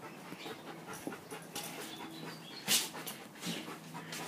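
A dog panting softly in short breathy puffs, one louder than the rest a little past the middle.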